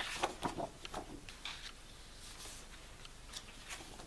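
Light rustling and tapping of a paper book being handled as its pages are leafed through, mostly in the first second and a half, with a few faint ticks after.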